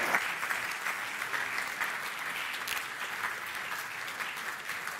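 A large audience applauding, the clapping loudest at the start and gradually dying away.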